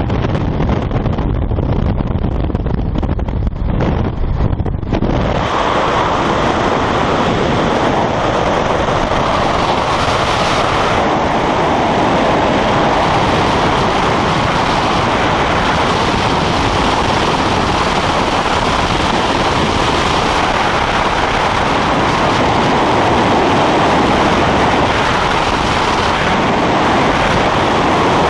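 Skydiving freefall wind rushing over the camera microphone: a loud, steady roar that takes over suddenly about five seconds in from a lower rumble, the open-door noise of the jump plane at the exit.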